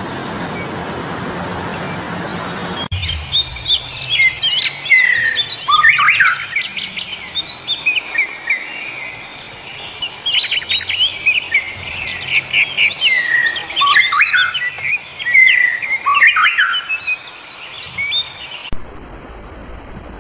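Songbirds singing: a dense run of quick chirps, trills and whistles from several birds. It starts abruptly after a steady rushing noise that cuts off about three seconds in, and gives way near the end to a quieter steady hiss with a high thin whine.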